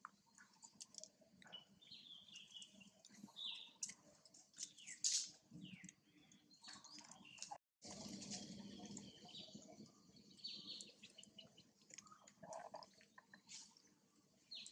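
Faint outdoor ambience with birds chirping now and then and scattered small clicks and rustles. The sound drops out for an instant just past halfway.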